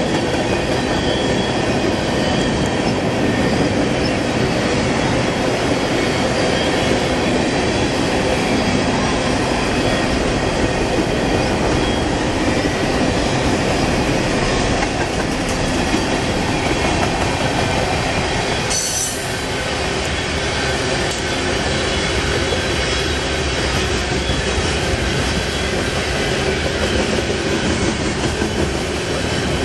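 Freight train of covered hoppers and tank cars rolling past: a steady rumble and clatter of steel wheels on rail, with a faint high wheel squeal running through it. A brief sharp hiss comes about two-thirds of the way in.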